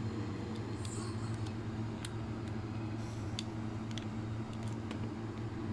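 Small screwdriver turning the screw back into a baitcasting reel's magnetic-brake side plate: a few faint, scattered clicks of metal on metal and plastic over a steady low background hum.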